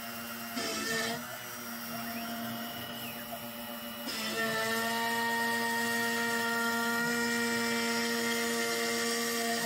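CNC router spindle running at 12,000 rpm with a steady whine, with a short louder burst about half a second in. About two seconds in, the axis motors whine up and back down in pitch during a rapid move. About four seconds in, the bit starts cutting a groove in MDF at 100 inches per minute and the sound gets louder, with a steady multi-toned whine.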